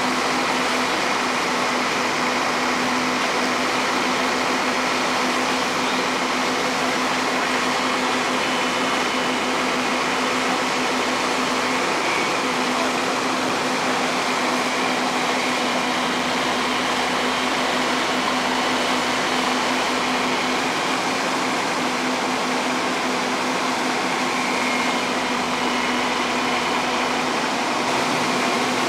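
Fire truck's diesel engine and water pump running steadily at raised revs to feed the hose lines: a constant loud drone with a steady hum.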